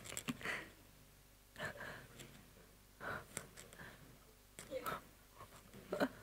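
Quiet room tone broken by about five brief, faint voice sounds: murmurs and breaths a second or so apart, off the microphone.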